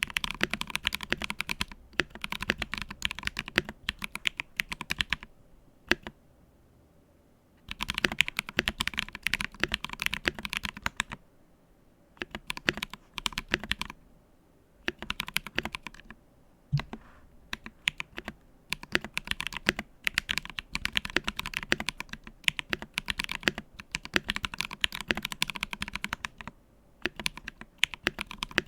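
Typing on a Monstargear Acrylic XO mechanical keyboard with Krytox-lubed Ethereal Panda tactile switches and PBT keycaps: runs of quick keystrokes broken by short pauses, the longest about six seconds in.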